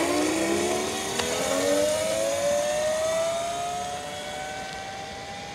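Castle Creations 800KV brushless motor on an electric go-kart whining under hard acceleration, the whine sweeping up in pitch and then levelling off. It grows fainter as the kart pulls away down the road.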